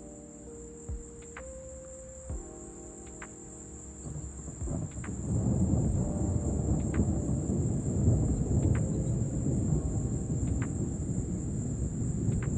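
Thunder rumbling in about four seconds in, building and rolling on as a long low rumble. Under it runs a steady high-pitched chorus of crickets.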